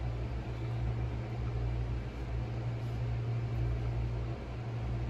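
Steady low machine hum with an even hiss, unchanging throughout.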